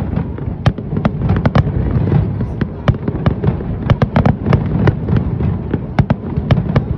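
Fireworks going off: a rapid, irregular string of sharp cracks and bangs, several a second, over a continuous low rumble of booms.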